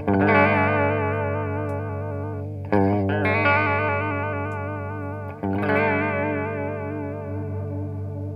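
Electric guitar chords played through a Walrus Audio Julia–clone analog chorus pedal with an MN3207 bucket-brigade chip. Three chords are struck about two and a half seconds apart, each left to ring out and fade, and the chorus gives them an even wobble in pitch.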